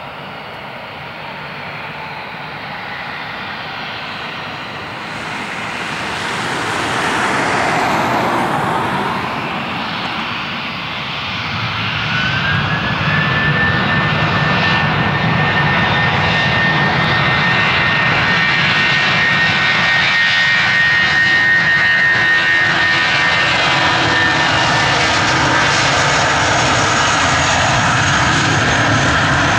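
Airbus A320 jet engines running, then spooling up to takeoff thrust. A whine rises in pitch about eleven seconds in and holds high as the engine noise grows louder through the takeoff roll.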